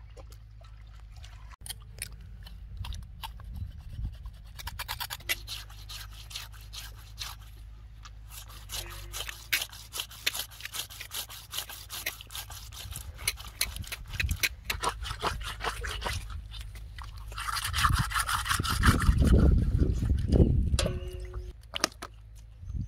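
Rapid, repeated scraping and rubbing strokes over a steady low hum, with a louder rush of noise about eighteen seconds in.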